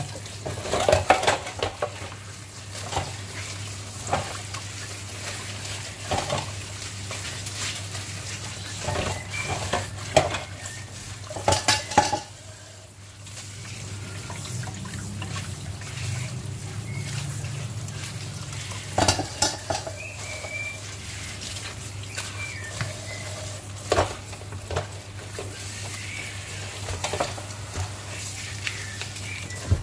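Kitchen clatter of dishes and utensils at the sink, irregular clinks and knocks while kailan leaves are washed. Faint short chirps from a pet bird come in now and then in the second half.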